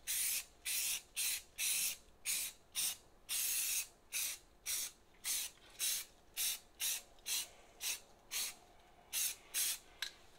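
Aerosol can of primer spraying in about twenty short hissing bursts, roughly two a second, with brief pauses between them and a few longer squirts.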